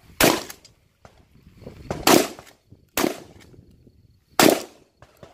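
Shotgun fired four times at uneven intervals, the shots a second or two apart.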